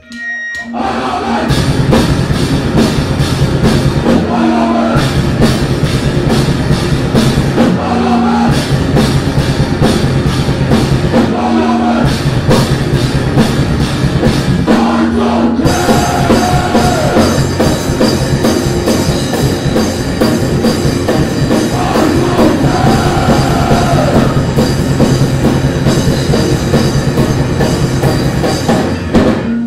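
Heavy metal band playing live: distorted guitars, bass and a pounding drum kit, coming in after a brief drop at the start. In the first half the band stops short on a held note about every four seconds. From about halfway on it plays straight through.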